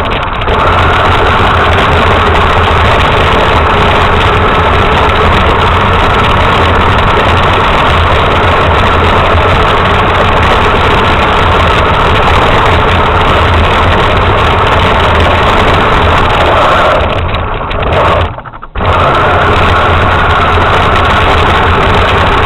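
RC truck's motor running steadily, with a brief cutout of under a second near the end before it picks up again.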